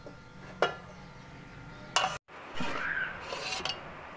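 Cooking utensils clinking against a cooking pot: a sharp clink about half a second in and a louder one about two seconds in, then the sound cuts out briefly and a stretch of scraping and clattering follows.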